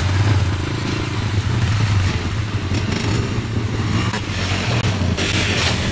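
Engines of Honda quad ATVs and a Yamaha YZ dirt bike running steadily at low revs, a loud low drone, with a burst of extra hiss near the end.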